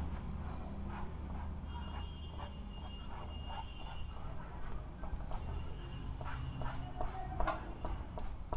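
Sponge whiteboard duster rubbing over a whiteboard in a series of short, irregular strokes, erasing marker writing.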